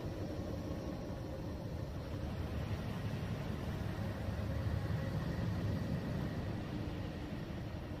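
A steady, deep noise track for sleep, heaviest in the low end, with faint steady hum tones running through it.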